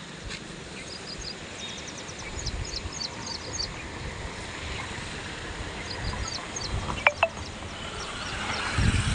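A swollen river in flood, flowing fast and rushing steadily below a bridge. Small birds chirp in quick clusters of short calls, with occasional low rumbles.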